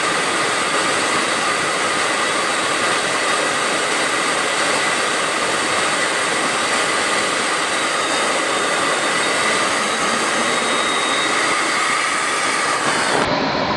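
Jet aircraft noise in flight: an even, steady rushing roar with a faint steady whine in it. The sound changes abruptly near the end.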